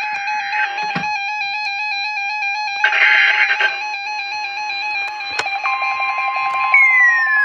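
Several NOAA weather radio receivers sounding their alert beeps and warbles at the weekly test, with two short bursts of the broadcast's digital header tones. After about five and a half seconds the steady 1050 Hz warning alarm tone starts, and near the end a siren-style alarm begins sliding down in pitch.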